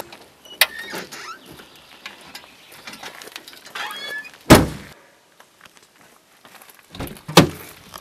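Knocks and handling noises inside a parked car: one loud heavy thump about halfway through and a second strong thump about a second before the end, with lighter clicks and rustling in between.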